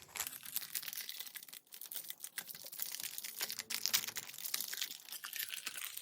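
Foil wrapper of a Donruss Football 2025 trading-card pack crinkling and tearing as it is opened by hand, a dense run of small crackles.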